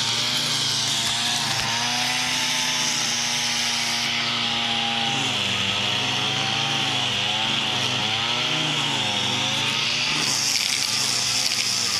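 Two-stroke string trimmer (weed eater) running at high speed, its engine pitch dipping and rising repeatedly from about halfway through as it cuts.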